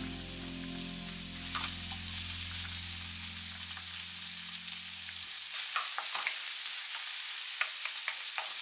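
Garlic, anchovy, sliced onion and shimeji mushrooms sizzling steadily in olive oil in a frying pan over low-medium heat. Clicks and scrapes of a utensil stirring them come more often in the second half.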